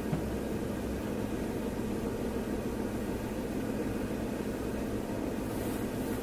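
Car engine idling steadily, heard from inside the cabin while stopped, with a brief high hiss near the end.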